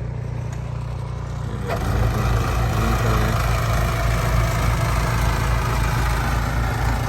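Car engine idling with a steady low hum. A little under two seconds in, a louder hissing rush comes in sharply and holds.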